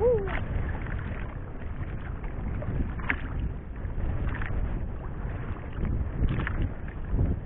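Wind buffeting the microphone and water washing against a small fishing boat's hull at sea, with a few light knocks. A brief squeak falling in pitch right at the start.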